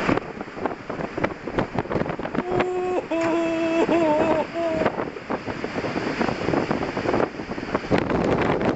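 Storm noise aboard a ship: wind and sea buffeting the microphone, with many sharp knocks and clatters. For about two and a half seconds in the middle, a held pitched tone sounds over it, stepping up and down in pitch.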